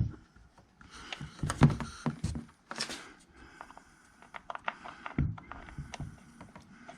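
Clicks, knocks and rustling from handling an e-bike's charger plug and cord while fumbling to connect it to the bike, with irregular sharp taps, busiest about a second or two in.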